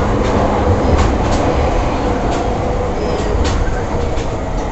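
JR E231-500 series electric commuter train running, heard from inside the car: a steady rumble of wheels on the rails, a faint hum from the traction motors and scattered clicks from the track.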